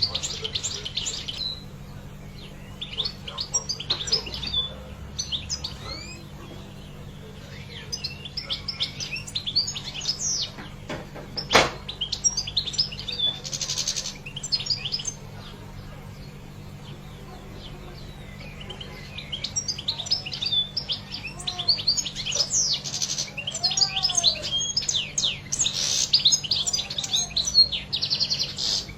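European goldfinch singing a rapid, twittering song in long runs, with a quieter stretch midway and a single sharp click about twelve seconds in, over a faint low hum.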